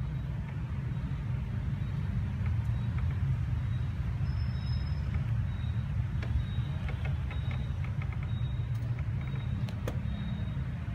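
Steady low outdoor background rumble, with a few faint short high-pitched chirps and light ticks over it.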